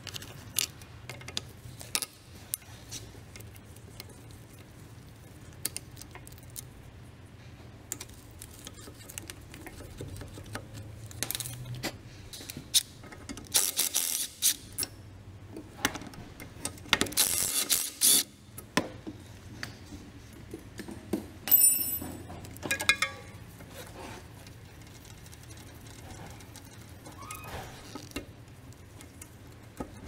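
Hand tools clicking and clinking on a car's rear brake caliper, with two louder bursts of about a second each, about 14 and 17 seconds in, from a handheld power tool on the caliper bolts.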